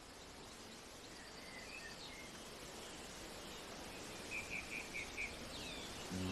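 Faint outdoor ambience slowly fading in: a steady background hiss with scattered bird chirps, including a quick run of four chirps about four and a half seconds in.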